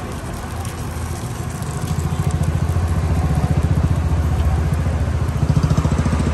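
A motor engine running close by, with a low, fast, even pulse that grows louder about two seconds in and stays loud.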